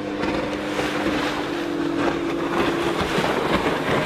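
Outboard motor of an open fishing boat running at speed close by, a steady engine note that rises in pitch partway through, over wind and rushing water.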